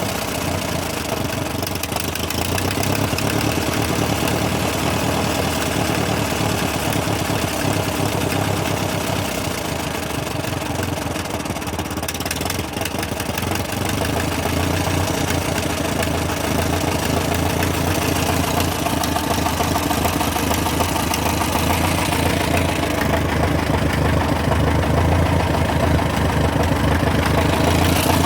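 Freshly rebuilt Massey Ferguson TO35 tractor engine running steadily, with a ticking, knocking sound in its running that has turned up after the rebuild.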